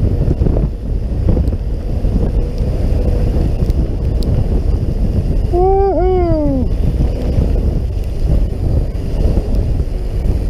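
Wind buffeting the microphone of a camera riding on a fatbike moving over a snowy trail, a steady low rumble. A little over halfway through comes a short pitched sound of two quick falling tones.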